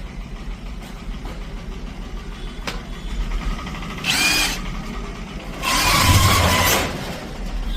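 INGCO 20 V brushless cordless impact wrench triggered twice: a short burst about four seconds in, its motor whine rising and falling, then a louder run of about a second near the end. A steady low rumble lies underneath.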